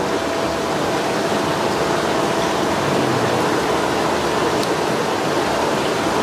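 Steady rush of running tap water splashing onto a fish and a cutting board.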